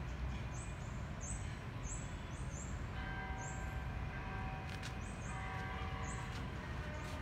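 Steady low rumble of outdoor background noise, with a faint held tone made of several pitches for about three seconds in the middle.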